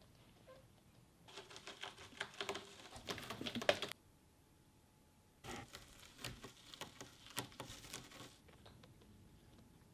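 A kitten's paws and claws scrabbling while it plays: fast scratchy pattering in two stretches of about three seconds each, with a short pause between them.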